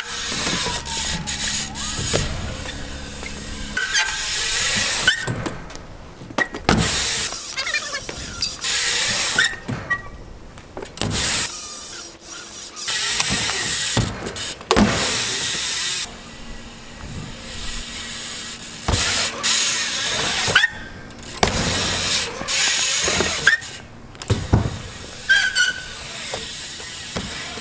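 BMX bike riding on a concrete skatepark: tyres hissing as they roll over the ramps, with sharp knocks of landings and wheel or frame impacts, in short clips that start and stop abruptly.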